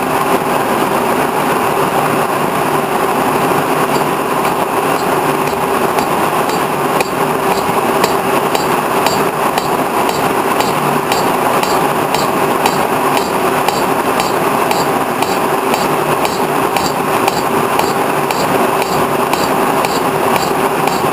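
Horizontal boring mill running with its spindle turning and a single-point tool cutting a steel shaft that has been built up with weld. A steady mechanical hum with a constant tone, with faint regular ticking over it.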